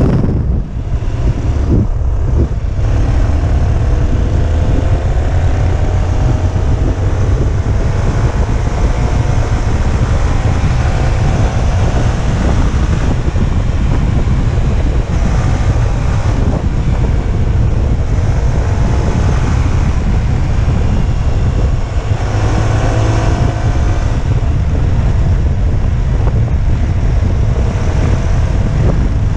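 Motorcycle riding with heavy wind buffeting the microphone, the engine note climbing slowly over several seconds as it accelerates, then again about 22 seconds in.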